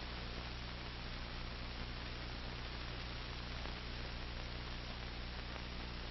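Steady electrical mains hum over a bed of hiss, the background noise of a VHS transfer's soundtrack, with nothing else on it.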